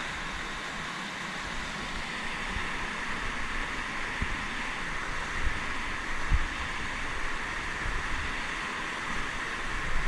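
Steady rushing of a fast mountain river, with low thumps of wind buffeting the microphone now and then.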